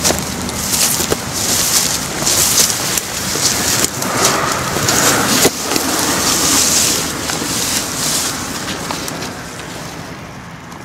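Dry reeds and brush rustling and crackling as someone pushes through a thicket, with repeated swishes and small snaps of stems brushing past; the rustling eases off near the end.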